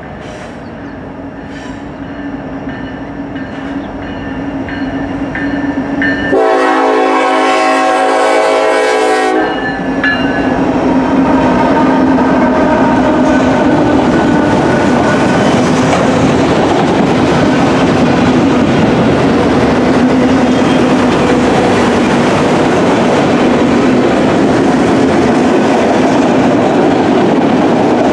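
Norfolk Southern EMD SD70ACE diesel locomotive approaching and growing louder. It sounds its horn in one long chord, about six seconds in, for about three seconds. Then a long string of autorack cars rolls past with steady wheel-on-rail noise and clickety-clack.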